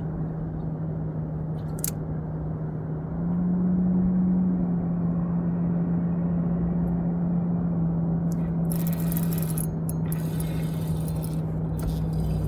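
Boat motor running with a steady hum that rises slightly in pitch and loudness about three seconds in, with a brief hiss from about nine to eleven seconds in.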